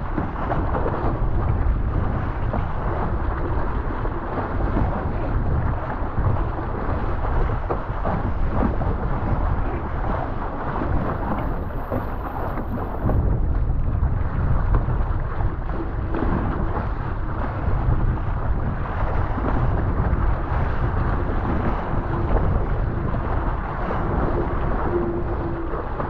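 Steady wind buffeting the microphone, a loud, rough low rumble, with a faint hum coming and going in the second half.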